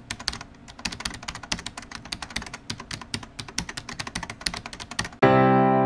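Rapid, irregular computer-keyboard typing clicks. Near the end they stop and a sustained electric piano chord comes in.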